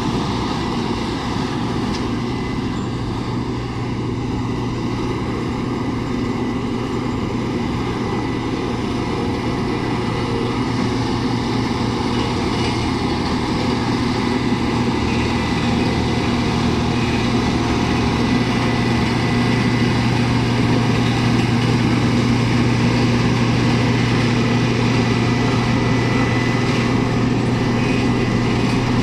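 Diesel engine of a Caterpillar CB-634C tandem drum roller running at a steady speed as the roller drives over packed dirt, growing somewhat louder as it comes closer.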